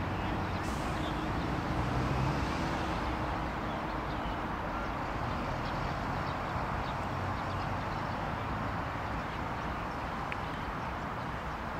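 Steady background rumble of distant road traffic, with no distinct events standing out.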